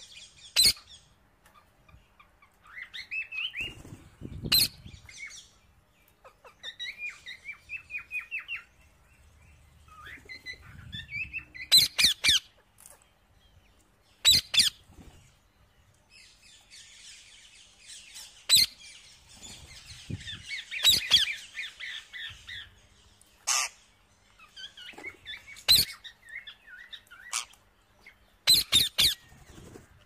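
Rose-ringed parakeets giving short, sharp screeching calls every few seconds, with quieter rapid twittering between them.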